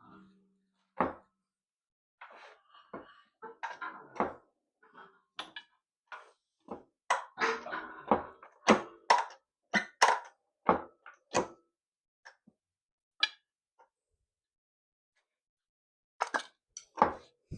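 Irregular metal clunks, knocks and clicks of hand tools and clutch parts being worked on a 1944 John Deere B tractor's clutch during adjustment, with a pause of a few seconds before more knocks near the end.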